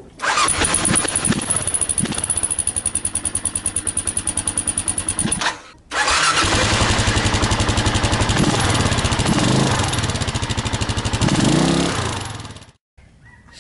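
Kawasaki KLR650 single-cylinder engine running through its stock exhaust, with a steady high-pitched chirp riding over the exhaust note. After a brief break about halfway, the bike runs again with its exhaust punched through with screwdriver holes: no chirp, and the throttle is blipped several times.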